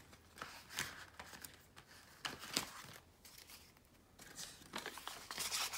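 Paper banknotes and a clear vinyl zipper cash envelope being handled: faint crinkling and rustling in short, scattered bursts.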